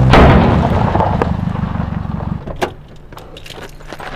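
A car running, with a sudden loud bang at the very start. The car noise dies away about two and a half seconds in, and a few sharp clicks and knocks follow as a car door opens.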